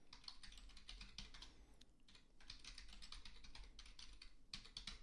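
Faint typing on a computer keyboard: quick runs of keystrokes with a short pause about two seconds in.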